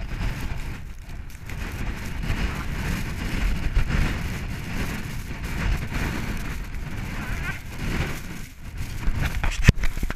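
Strong Arctic wind, about 30 mph gusting to 40, buffeting the microphone as a rumble that rises and falls, with a hiss of blowing snow. A single sharp click comes near the end.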